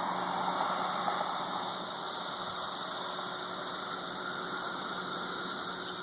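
Chorus of periodical (17-year) cicadas from the 2013 Brood II emergence: a loud, continuous high-pitched drone with no break.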